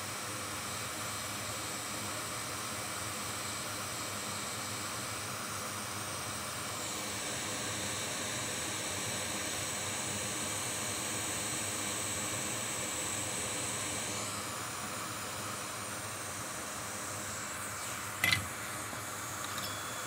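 Hot air rework station blowing with a steady hiss while reflowing corroded solder on a laptop logic board. The hiss swells for several seconds in the middle. A short click comes near the end.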